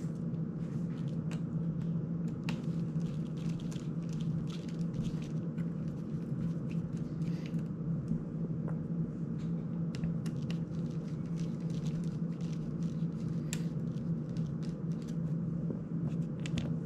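A steady low hum in the room, with scattered small clicks and ticks from a precision screwdriver and small drone parts being handled.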